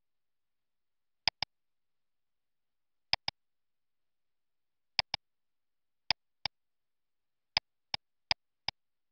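Computer mouse button clicking: six pairs of sharp clicks, each a louder click followed a fraction of a second later by a softer one, with dead silence in between.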